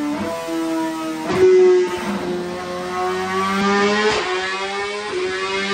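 BMW S1000RR inline-four with a full Akrapovic race exhaust running hard on a dyno. Its pitch jumps up loudly about a second and a half in, then climbs steadily as the revs rise. Guitar music plays alongside.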